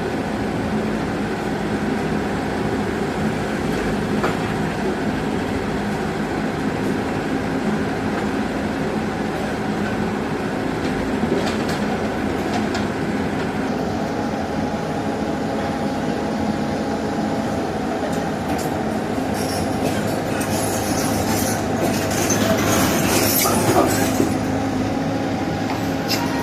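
Tracked earthmoving machine's diesel engine running steadily under load. Late on, the steel tracks squeal and clank for several seconds.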